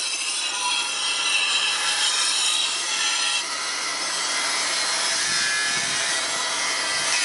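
Handheld glass edge grinder running steadily as it grinds and chamfers the edge of a glass sheet, a continuous gritty, high-pitched grinding with a brief dip about three and a half seconds in.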